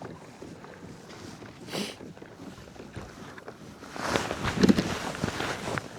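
Water sloshing against a kayak hull, with wind on the microphone; it grows louder over the last two seconds, with a few short knocks.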